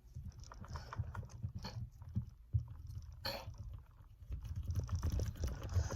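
Putty being rolled into a ball between the hands against a surface: irregular soft squishing, tapping and small clicks, busiest near the end.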